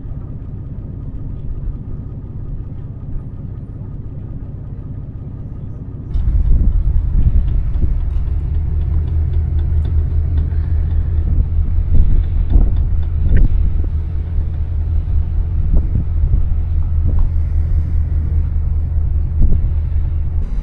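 Steady low rumble of a vehicle on the move. About six seconds in it abruptly becomes louder and brighter, with scattered knocks and rattles over the rumble.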